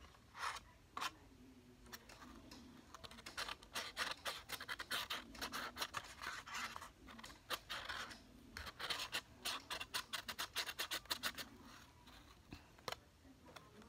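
A highlighter tip scratching and tapping against the inside of a cup of water, in quick runs of many short strokes, heaviest through the middle, working the ink out of the highlighter into the water.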